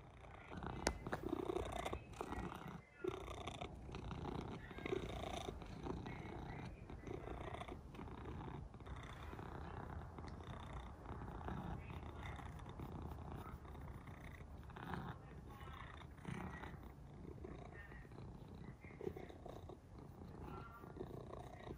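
Long-haired cat purring loudly: a steady low rumble while it is stroked.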